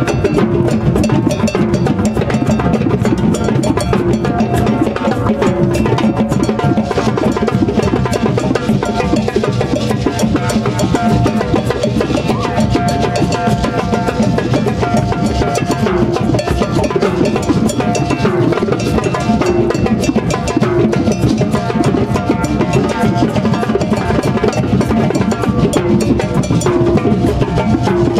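Drum circle jam: a drummer's sticks strike a drum close by, among djembes and other drums playing a continuous rhythm together.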